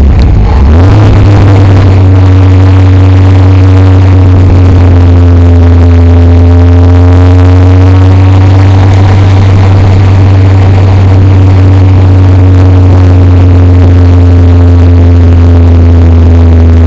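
Caterham Seven's engine heard from the open cockpit, very loud. Its revs dip and come back up within the first second, as on a downshift, then it runs at steady low revs while the car slows.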